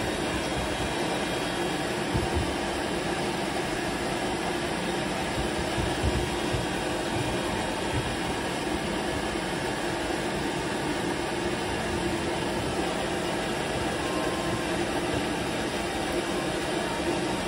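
Steady rush of air from a fan or blower motor with a low hum underneath, running without letup.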